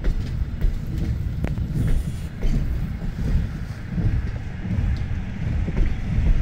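Container freight train's wagons rolling past on the rails, a steady low rumble with faint clicks from the wheels, mixed with wind buffeting the microphone.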